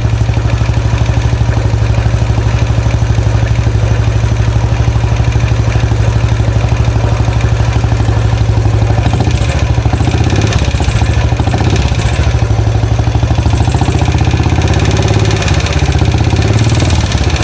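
A freshly rebuilt 2013 Royal Enfield Classic 500 single-cylinder engine idling steadily, sounding a bit noisy. The owner can't place the noise and wonders whether it comes from the rockers or the pushrods.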